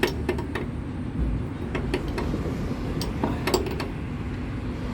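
Hand tools clinking on metal: a wrench knocking and tapping against metal parts in a series of sharp, irregular clicks, over a steady low rumble.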